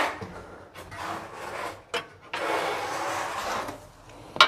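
Rough scraping strokes on a hard surface: a short one about a second in and a longer one from about two seconds in, with a few light knocks and a sharp knock near the end.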